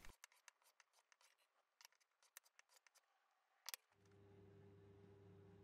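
Near silence: a few faint, scattered sharp clicks, then from about four seconds a steady low hum.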